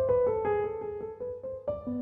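Background piano music: a slow melody of single notes stepping downward.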